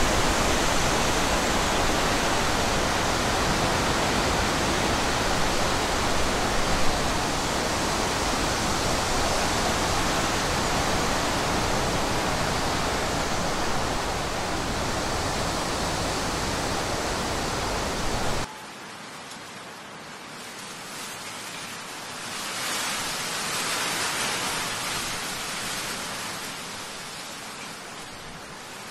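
Storm wind and rain, a loud heavy rush with wind buffeting the microphone. About two-thirds of the way through it cuts abruptly to a quieter hiss of wind and rain that swells and fades.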